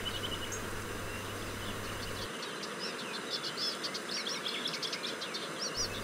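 Small birds twittering in quick, short high notes over the steady rush of river water; the twittering starts about halfway in and grows busier.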